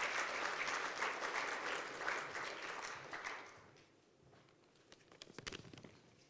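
Audience applauding, dying away about three and a half seconds in, followed by a few faint knocks.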